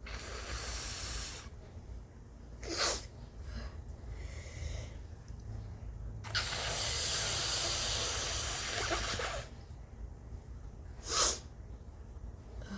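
A person blowing their nose hard, a long hissing blow twice, each followed a second or two later by a short, sharp sneeze; the second sneeze is the loudest.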